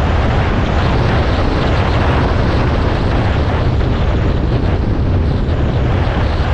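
Off-road motorcycle riding at a steady speed on a gravel road: engine running, with wind rushing over the microphone and tyre noise from the gravel.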